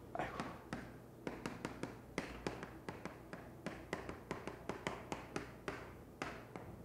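Chalk writing on a blackboard: an irregular run of light taps and short strokes, several a second, as a heading is written out.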